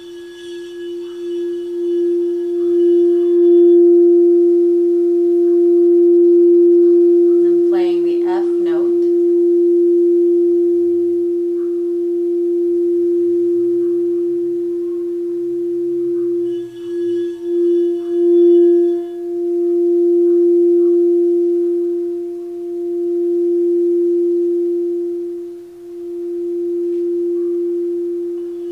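Crystal alchemy singing bowl sounding one sustained steady tone with a fainter overtone an octave above, its loudness swelling and ebbing in slow waves.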